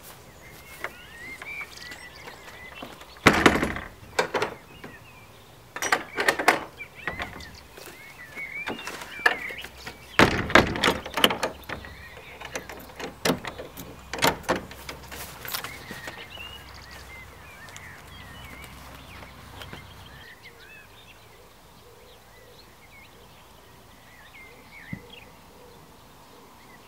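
Wooden shed doors being swung shut and fastened, with a series of knocks and thuds over the first fifteen seconds or so. Birds chirp throughout.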